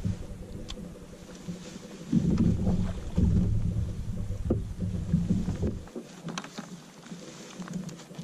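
Kayak on the water: low rumbling and sloshing with scattered light knocks against the hull. The rumbling cuts off about six seconds in, leaving a few faint clicks.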